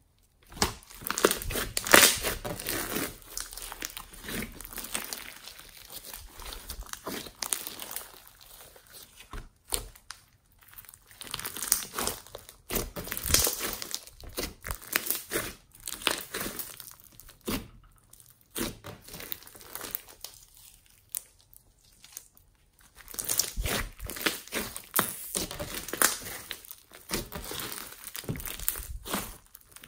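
Homemade slime mixed with foam beads being squeezed, stretched and kneaded by hand. It gives a sticky crackling with many small pops and clicks, in bursts of a few seconds with short quiet gaps between them.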